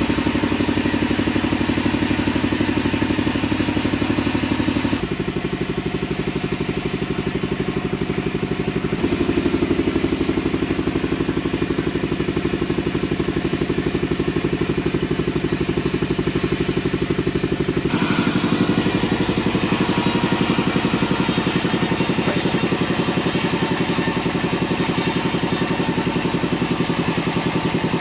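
Modified Bandsaw48 sawmill band saw running, a steady machine drone with a rapid pulse; its tone changes abruptly about 5, 9 and 18 seconds in.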